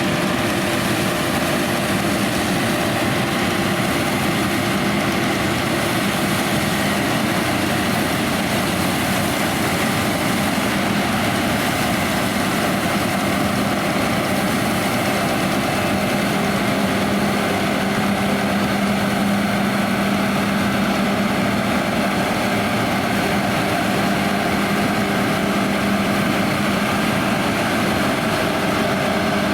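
John Deere X9 1100 combine harvester running steadily while combining oilseed rape: a constant heavy engine and machinery drone with a steady low hum that holds the same level throughout.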